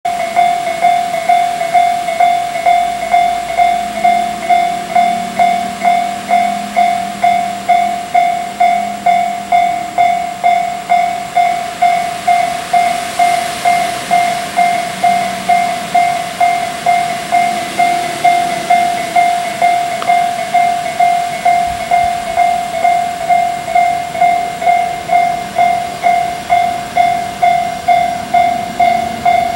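Railway level-crossing warning bell ringing, a single high electronic ding repeated just under twice a second, steady throughout: the signal that a train is approaching.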